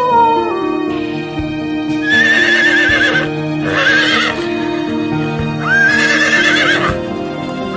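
Horse whinnying three times, each a trembling, wavering neigh of about a second, over background music with steady held notes.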